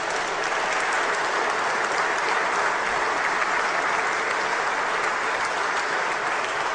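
A large audience applauding, a dense, steady clapping that holds at an even level throughout.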